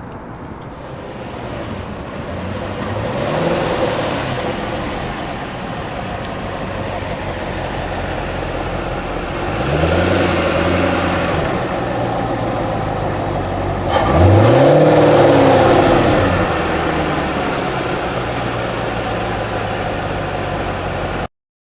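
Car engine sound running steadily and revving up and back down three times, the last rev around two-thirds of the way through the loudest; it stops abruptly near the end.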